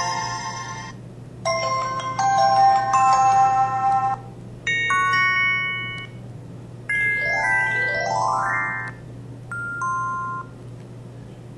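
A mobile phone's built-in alert and notification sounds played one after another: four short electronic chime jingles, the third with quick rising runs of notes and the last a brief two-note ding.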